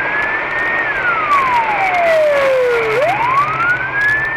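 Police car siren on a slow wail: the pitch falls steadily for about two seconds, then sweeps back up near the end, over the steady noise of the moving car.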